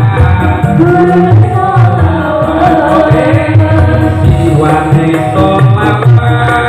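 Voices singing a devotional Islamic song into microphones, backed by an electronic keyboard and hand drums keeping a steady beat.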